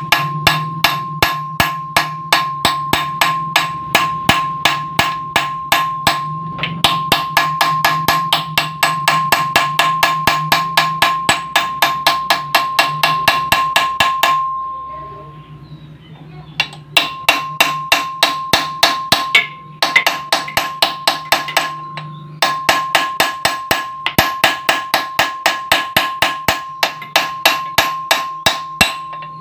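Hammer blows on a steel punch held against a car suspension arm's ball joint, as the worn joint is reworked. The blows come fast and evenly, about three a second, with a ringing metallic tone between them. They stop for about two seconds about halfway.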